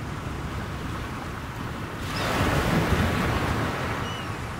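Sea surf washing and foaming, with a louder surge as a wave breaks about two seconds in.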